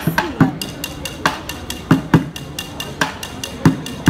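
Two drumsticks beating a rhythm on a plastic yogurt bucket used as a drum: loud, sharp hits one or two a second with softer, quicker strokes between them.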